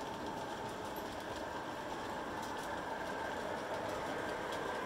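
MTH model passenger train with a long string of Amfleet cars running on the layout: a steady rolling noise of many wheelsets on the track, with a faint hum from the locomotive motors, slowly getting a little louder.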